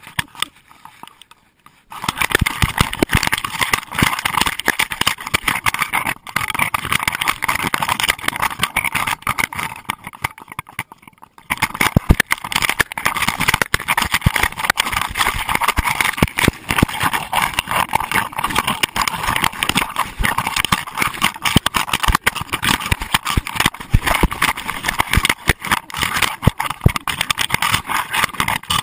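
Loud, continuous rubbing, rattling and knocking of a GoPro camera in its waterproof housing as it jostles against the running dog it is strapped to. It starts about two seconds in, with a short lull about ten seconds in.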